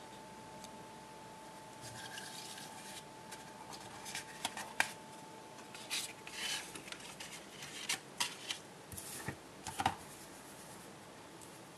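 Business cards and a card photo folder being handled by hand: an irregular run of short scrapes, rubs and light taps.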